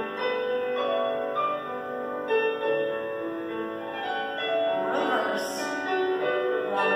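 Piano accompaniment for a ballet barre exercise, playing a melody over chords.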